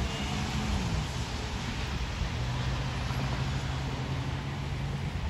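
Traffic on a rain-wet road. A car engine's hum drops in pitch about a second in, then holds steady, over a continuous hiss of tyres on the wet road.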